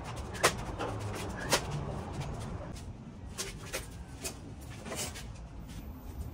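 Scattered sharp knocks and clacks from handling a sliding glass door panel and its frame, two of them louder within the first second and a half, the rest lighter and irregular.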